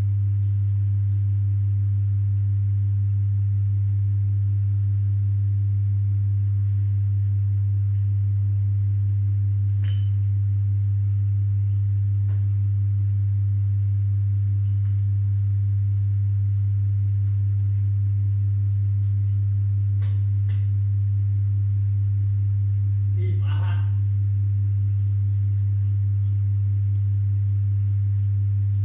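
Loud, steady low hum with a few fainter tones above it, unchanging throughout. A few faint clicks sound over it, and a short voice-like cry comes about 23 seconds in.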